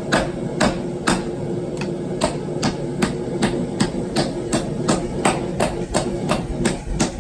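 Rounding hammer striking hot steel in a steady rhythm, about two to three blows a second, doming a forged turtle shell against a wooden block.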